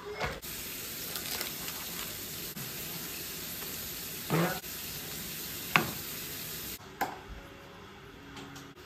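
Hot baking tray of baked chicken meatballs and vegetables sizzling steadily, with a slotted serving spoon scraping and knocking against the metal tray a couple of times. The sizzle cuts off about seven seconds in.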